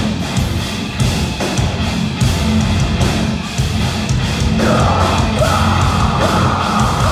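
Metalcore band playing live: heavy distorted guitars, bass and drums at full volume. A held higher line comes in about four and a half seconds in.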